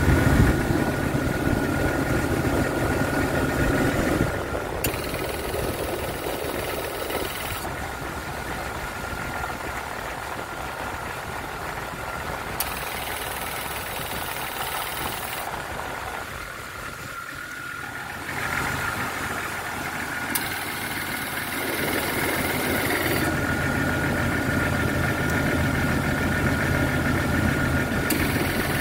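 Jeep XJ engine idling with the air conditioning running, with a steady thin whine above the engine hum; the overall level steps down and back up several times. The owner says the AC compressor keeps cycling because the system is leaking refrigerant.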